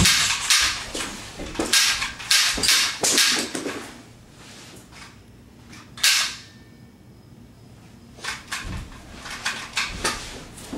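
Rapid gunfire sounds from a staged shootout: a flurry of quick shots, a lull, one loud single shot about six seconds in, then more shots toward the end.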